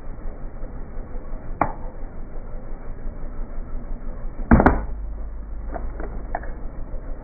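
Plastic syringes filled with liquid cracking and crunching under a car tyre, over a steady low rumble. There is one sharp crack about a second and a half in, a loud crunch of breaking plastic about four and a half seconds in, then a few smaller cracks.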